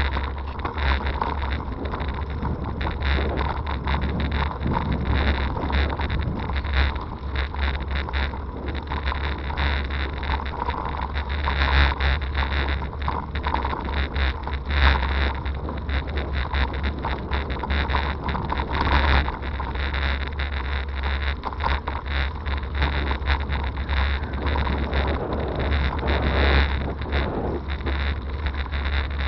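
Wind buffeting the microphone of a bike-mounted camera as a hybrid bicycle rides a rough gravel towpath, with steady low rumble and frequent small rattles and knocks from the ride.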